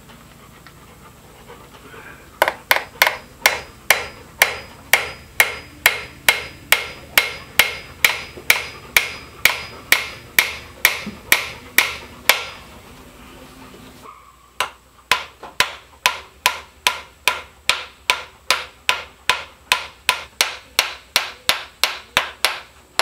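Small hammer peening over the ends of cut-down quarter-inch soft-steel bolts, used as homemade rivets to fix a wooden handle to a crosscut saw blade. Quick, sharp strikes come about three a second, starting a couple of seconds in. They pause briefly about halfway through, then carry on slightly faster.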